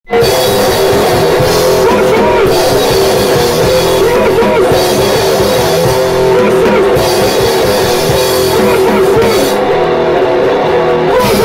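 Mincecore band playing: heavily distorted guitar over fast drums, kicking in at once and staying loud and even.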